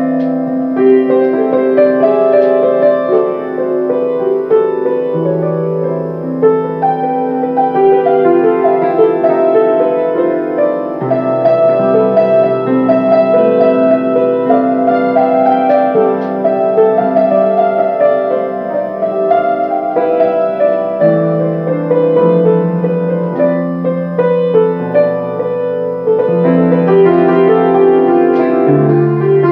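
Solo piano playing a slow melody over long-held low bass notes, the bass note changing every few seconds.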